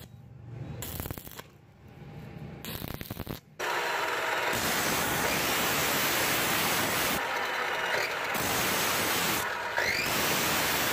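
Steel tube pressed against a spinning bench grinder wheel, giving a loud, steady grinding hiss that starts suddenly about three and a half seconds in. Before that, a quieter, broken crackle from arc welding the tube's end cap, with sparks.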